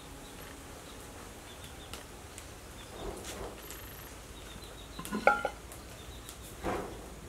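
Kitchenware clinking: a few scattered light knocks, then a quick cluster of sharp, ringing clinks about five seconds in. A couple of brief scuffing noises come before and after.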